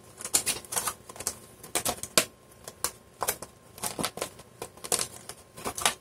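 Clear hard-plastic blister packaging being handled and prised open, with irregular crackles and clicks.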